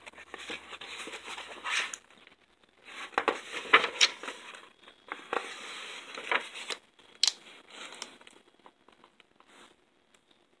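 Pages of a hardcover picture book being turned and pressed flat by hand: bouts of paper rustling and crinkling with a few sharp snaps, dying away near the end.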